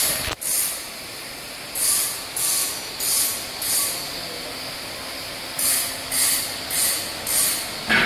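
Short hissing scrapes repeating about every 0.6 s in two runs of four to five, over a faint steady hum.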